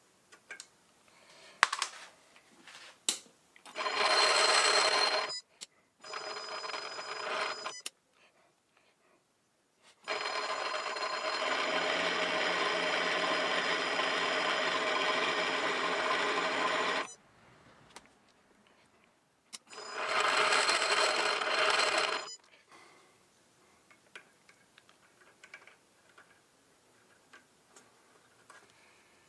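Small metal lathe's motor and gear train whining steadily in four short runs that start and stop abruptly, the longest lasting about seven seconds, as threading passes are taken on a miniature engine crankshaft. Light clicks of hand adjustments come between the runs.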